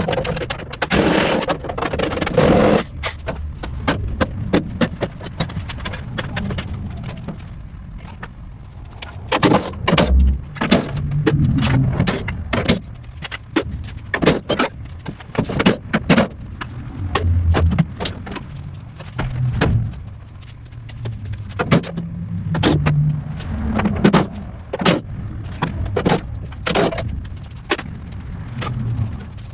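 Irregular clanks, clicks and knocks of hand tools and metal parts being handled while a car is taken apart, with a scraping sound in the first few seconds.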